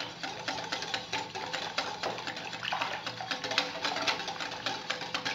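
A utensil beating runny pancake batter of egg, sugar and melted butter in a bowl: a fast, even run of clicks against the bowl, several strokes a second.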